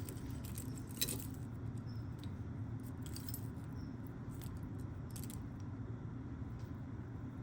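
Small metal costume jewelry pieces clinking and jingling as they are handled and sorted, in a few scattered light clicks.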